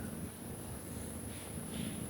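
A nursing mother cat's strange low rumbling sound. Near the end there are two short, soft noises.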